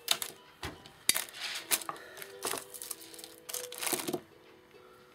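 Plastic pearl beads clicking and clattering against each other as they are handled, in a dozen or so short, sharp rattles that bunch together and stop near the end.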